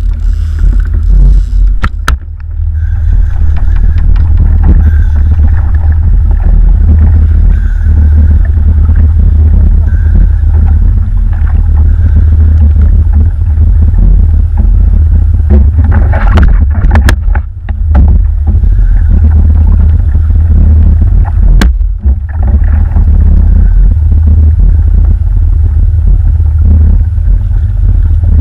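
Wind buffeting the kayak-mounted camera's microphone: a loud, steady low rumble. A few sharp knocks come through it, about two seconds in, twice near the middle and once later on.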